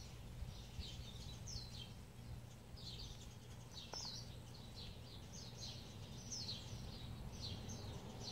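Small birds chirping: short, high, falling chirps repeating irregularly, several in each second, over a steady low hum.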